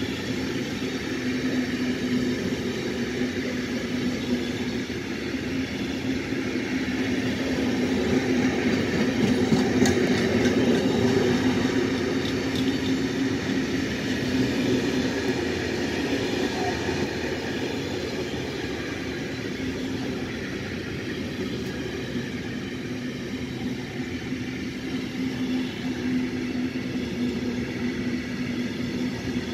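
Intermodal freight train of trailer and container wagons passing close by: a steady rumble and clatter of wheels on the rails, a little louder about ten seconds in.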